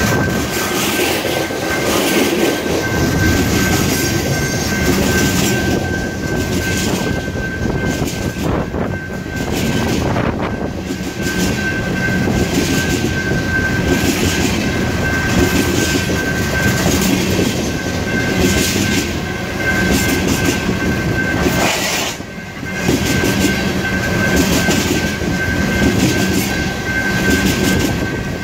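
Empty coal gondolas of a Union Pacific freight train rolling past close by: a steady rumble and rattle, with the wheels clacking regularly over rail joints and a steady high ring over it. The noise dips briefly about 22 seconds in.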